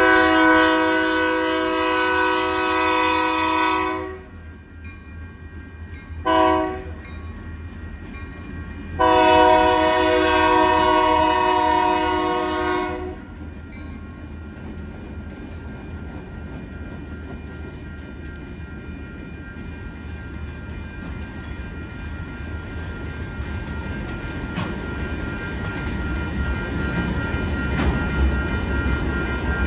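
Union Pacific freight locomotive's air horn sounding a long blast, a short one, then another long blast: the grade-crossing warning. After it, the freight train's rumble and wheel clatter grow louder as the cars roll through the crossing.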